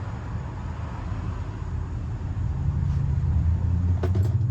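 A motor vehicle engine running with a low steady hum that starts to rise in pitch near the end. A short sharp click comes about four seconds in.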